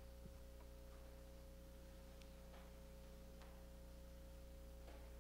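Near silence: room tone with a steady low hum and a faint steady tone, and a few very faint soft sounds.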